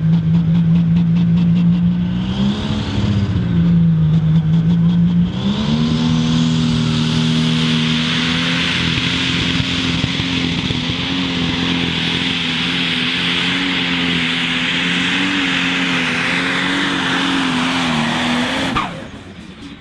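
John Deere Pro Stock pulling tractor's turbocharged diesel engine revving up on the line, then held at high revs at full throttle as it drags the weight sled with its front wheels in the air. The engine note holds steady under load and cuts off suddenly near the end.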